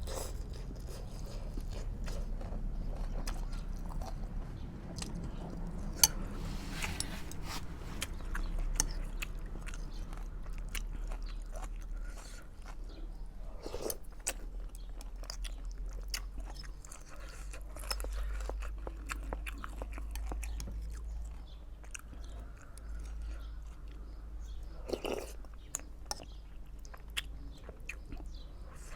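A person eating close to the microphone: chewing and biting food, with crunches and many small clicks, one sharper click about six seconds in.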